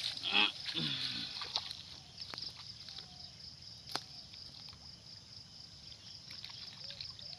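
Water sloshing and trickling as a long collapsible mesh fish trap is hauled and lifted out of shallow pond water. It is busiest in the first second or so and then quietens to soft drips and small clicks, with a steady high buzz behind and one sharper click about four seconds in.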